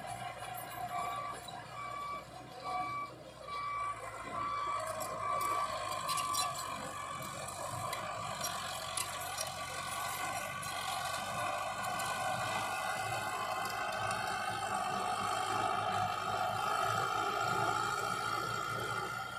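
A heavy diesel machine's reversing alarm beeps about seven times, roughly one beep every 0.8 seconds, over the engine's running, then stops. The engine keeps running and pulls harder, its pitch rising slightly, through the second half.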